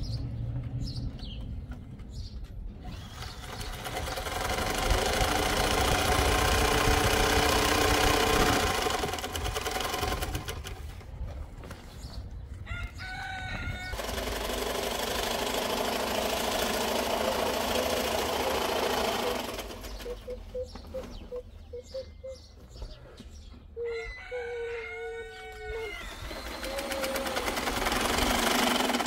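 Electric sewing machine running in long bursts of several seconds as it stitches heavy tent fabric, with a rooster crowing twice in the pauses between bursts.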